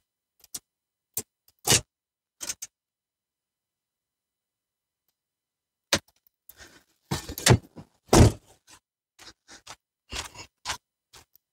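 Scattered short knocks and clunks of handling: a few in the first three seconds, then a busier run of them from about six seconds in.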